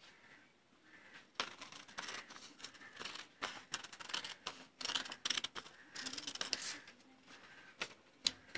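Scissors snipping through stacked paper while a sleeve pattern is cut out. A quick run of short cuts starts about a second and a half in and goes on to about seven seconds, followed by a couple of single clicks near the end.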